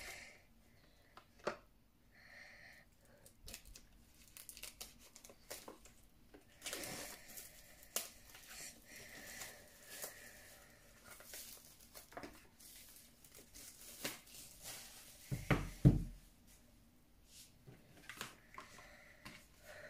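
Plastic shrink wrap being torn and peeled off a cardboard album box, crackling and crinkling in irregular bursts. About three-quarters of the way through there are a couple of loud thumps as the box is handled.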